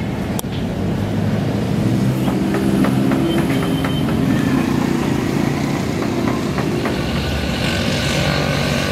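A motor vehicle engine running steadily, its pitch drifting slightly, with a few faint clicks.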